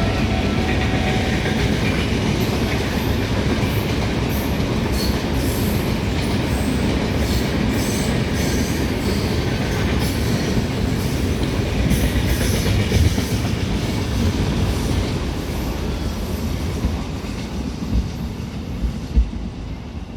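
Passenger express train rolling past at speed, a steady rumble of coaches on the track with many sharp wheel clacks over rail joints. The sound slowly dies away near the end as the train moves off.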